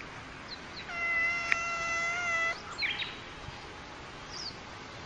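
Domestic cat giving one long, steady-pitched yowl of about a second and a half, a defensive warning at a snake it is facing.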